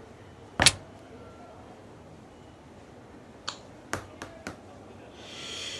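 A ticket terminal's key is struck with one hard, sharp tap about half a second in, then tapped four more times, more lightly, around three and a half to four and a half seconds in. A soft breathy sound follows near the end.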